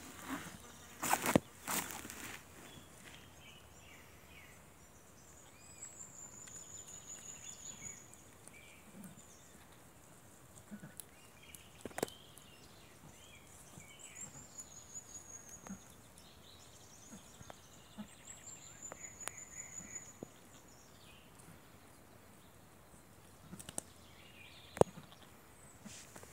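A songbird repeats a high, slightly falling trill three times, with fainter chirps between, over quiet outdoor background. A few sharp knocks or handling thumps break in, the loudest pair about a second in.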